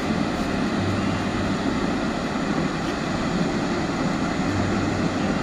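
Steady rushing of a large jet of water shooting from a dam's outlet and crashing into the river below.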